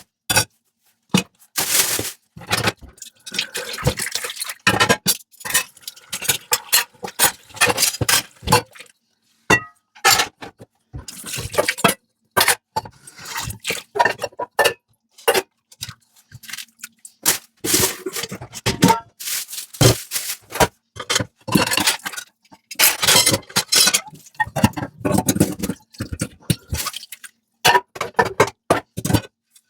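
Dishes being washed by hand in a sink: repeated clinks of dishes and short stretches of water running and splashing, broken by brief silent gaps.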